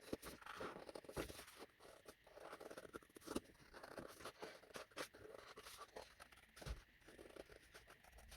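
Small craft scissors snipping around a flower cut from patterned paper: faint, irregular snips and paper rustles, a few each second.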